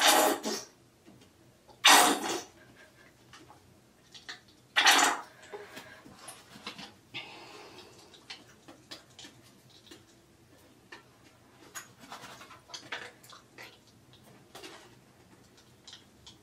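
Plastic toiletry bottles and containers being handled and packed: three loud rustling, clattering handling noises in the first five seconds, then faint clicks and rustles.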